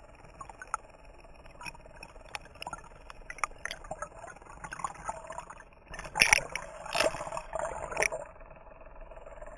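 Water gurgling and sloshing, heard from just under the surface, with scattered small clicks and a louder run of gurgling splashes about six to eight seconds in.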